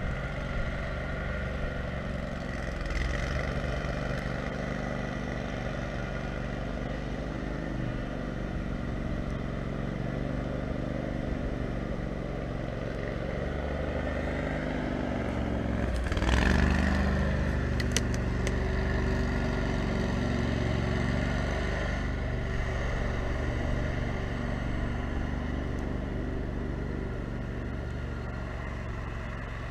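Kohler 18 HP Command engine of an off-road lawn mower running steadily under way, with a brief rise in engine speed and loudness about halfway through and a few sharp clicks just after.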